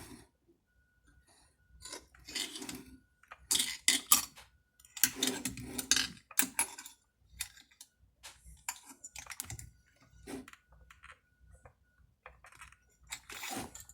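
Hand tools and small metal parts clicking and clattering irregularly while a chainsaw cylinder is being fastened down, the busiest clatter coming in the first half.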